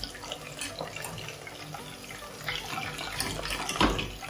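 Chicken 65 pieces deep-frying in hot oil, with a steady crackle of small pops. Near the end there is a louder rush as a wire spider strainer scoops the finished pieces up out of the oil.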